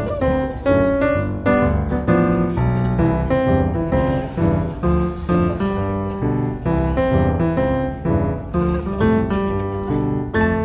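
Background instrumental music: a steady, quick run of pitched notes.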